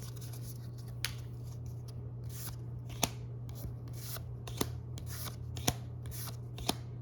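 Pokémon trading cards handled one at a time from a freshly opened booster pack: soft sliding swishes with about five sharp card snaps, spaced irregularly about a second apart.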